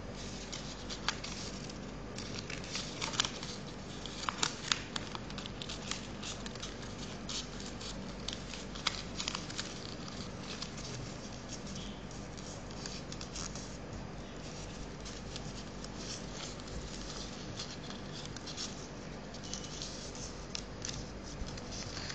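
A sheet of paper being folded and creased by hand, giving scattered crinkles and light ticks that are busiest in the first few seconds and again about nine seconds in, over a steady low hum.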